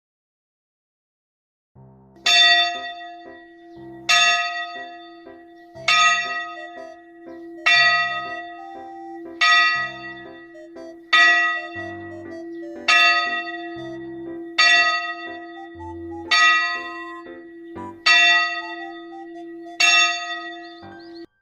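A bell struck repeatedly, eleven strikes about every second and three-quarters, each ringing on over a steady low hum, starting about two seconds in and cutting off abruptly near the end.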